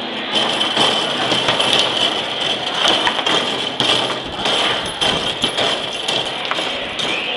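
Foosball table in play: rods sliding and spinning, with the ball and the figures on the rods clacking against each other and the table's walls in quick, irregular knocks.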